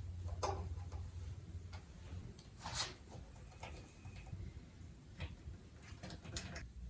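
Irregular light clicks and taps of hand work, with a sharper tap nearly three seconds in, over a faint low hum.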